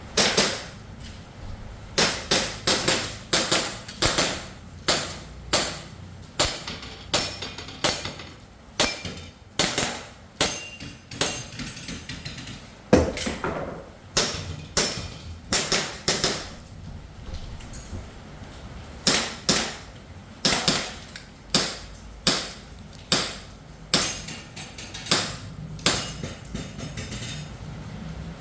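Airsoft Glock 17 Gen4 pistol firing dozens of sharp shots in quick pairs and short strings, with a pause of about two seconds just past the middle.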